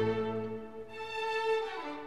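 Background orchestral music with sustained bowed strings: held violin notes over lower strings that fade out about half a second in.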